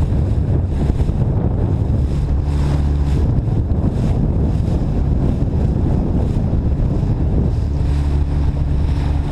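Outboard motor of a small fishing boat running steadily under way, with water rushing along the hull and wind buffeting the microphone.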